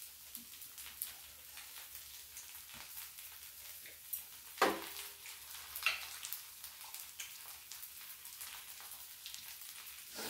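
Squid and green-onion pancake batter sizzling on a tabletop griddle, a steady fine crackle. A few sharp clicks of chopsticks against dishes stand out, the loudest about halfway through.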